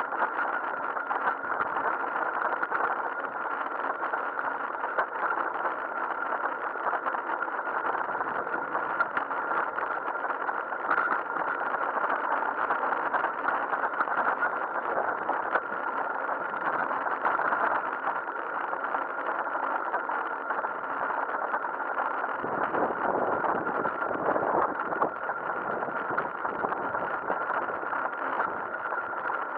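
Steady muffled rumble of a bicycle rolling over brick paving, heard through a bike-mounted action camera, with a constant high-pitched tone over it; the rumble grows heavier for a few seconds past the middle.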